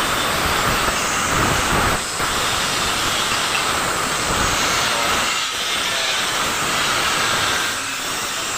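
Steady harsh hiss of an angle grinder grinding the welded edge of a sheet-steel car bumper.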